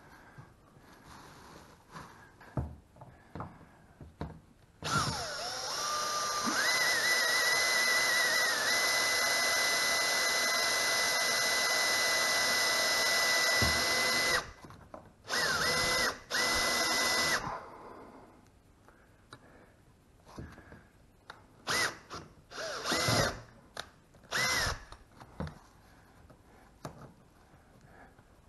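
Makita cordless drill drilling holes into the car's sill. The motor winds up to speed about five seconds in and runs at a steady whine for about nine seconds, then two short bursts follow and three quick blips near the end. Light clicks and rustling fill the quieter stretches.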